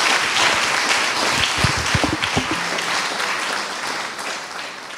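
Audience applauding in a hall, the clapping fading away toward the end.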